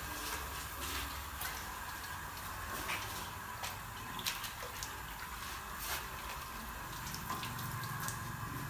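Water sloshing and splashing as dyed cloth is rinsed by hand in a plastic tub, with many small splashes and drips over a steady hiss of water. Near the end water streams off the lifted cloth.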